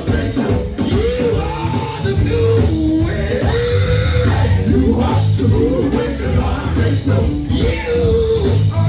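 Loud live church gospel music: a band with drum kit and bass plays a steady groove under singing that bends and slides in pitch.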